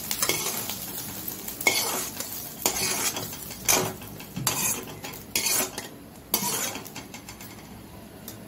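Perforated metal spatula scraping and knocking against a metal wok in short strokes about a second apart as fried scrambled egg is scooped out, over a light sizzle of oil that fades toward the end.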